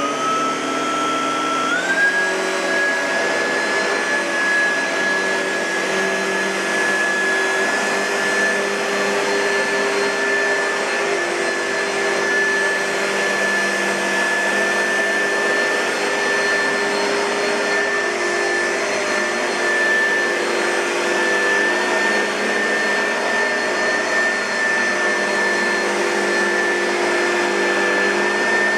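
2006 Oreck XL2 upright vacuum cleaner motor spinning up with a rising whine that steps higher about two seconds in, then running steadily with a high whine over an even rush of air.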